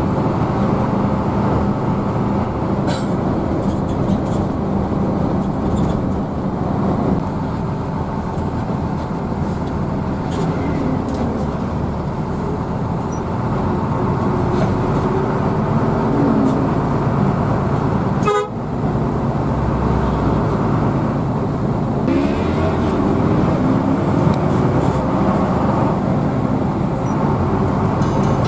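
Hino AK bus engine and road noise heard from inside the moving bus: a steady low rumble, with a brief drop about eighteen seconds in.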